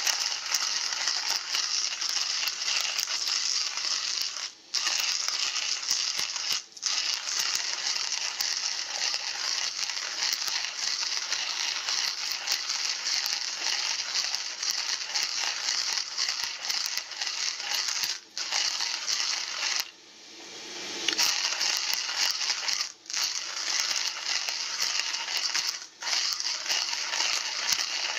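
Coffee beans crunching and crackling as they are ground in a hand-cranked coffee mill, a steady grinding broken by a few brief pauses in the cranking, one lasting about a second.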